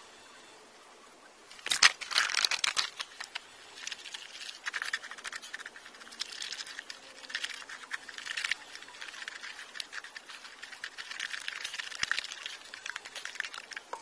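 Hands handling work materials: a sharp knock about two seconds in, then irregular scraping and rustling that comes and goes.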